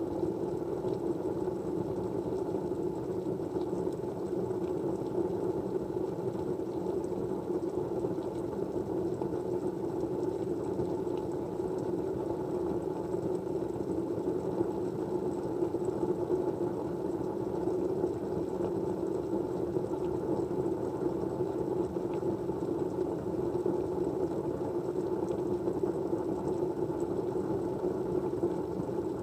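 Steady, low rushing noise at an even level, a white-noise backdrop, with a few faint ticks now and then.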